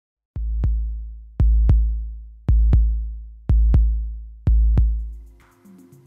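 Electronic intro music: five pairs of deep bass-drum hits, about one pair a second, each hit booming and dying away slowly. Softer music begins near the end.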